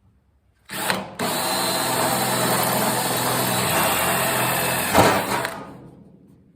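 Power drill boring a hole through the sheet-steel tailgate of a 1978 GMC stepside. It gives a short blip, then runs steadily under load for about four seconds, with a sharp louder jolt about five seconds in as the bit goes through the metal, then winds down.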